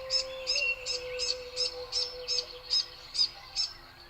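A small bird chirping in a steady series of short, high chirps, about three a second, that stops shortly before the end, over a steady held low tone.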